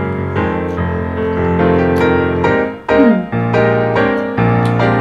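Background piano music: a gentle melody with chords, the notes starting one after another.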